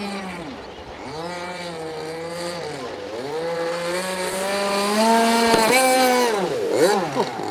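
Gas RC speedboat's two-stroke petrol engine running at speed, its pitch dipping and climbing with the throttle, then rising and falling rapidly several times near the end.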